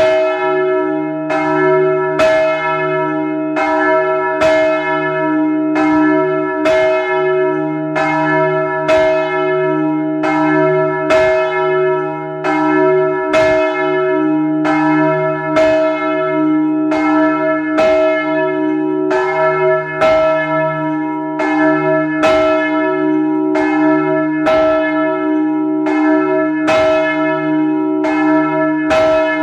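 Swinging bronze church bells rung together in full peal (plenum), heard close from inside the belfry: overlapping clapper strikes, one to two a second in an uneven pattern, over a sustained ringing hum.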